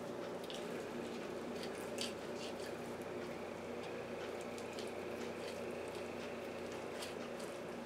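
Knife cutting raw chicken breast away from the bone: faint wet squishing and a few light clicks over a steady hum.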